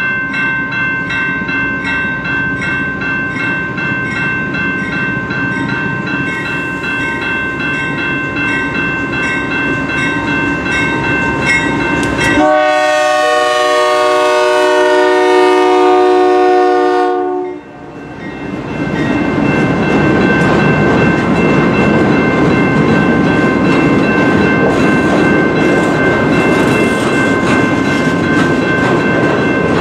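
A railroad crossing bell rings steadily, and a CN diesel freight locomotive's air horn sounds one long chord, about five seconds long, near the middle and then cuts off. After it comes the rumble and clickety-clack of the freight train rolling slowly through the crossing, with the bell still ringing.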